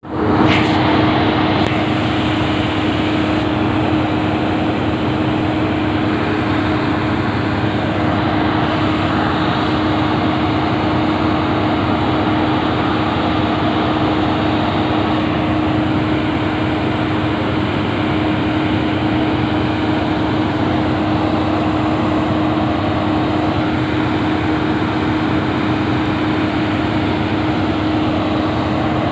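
Heavy construction machinery running steadily: a loud continuous drone with a constant low hum through it.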